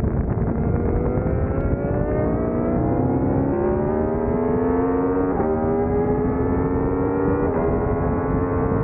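Aprilia V4 sport-bike engine accelerating hard on track. Its pitch climbs steadily, drops with an upshift about five seconds in and another a couple of seconds later, then climbs again in the next gear.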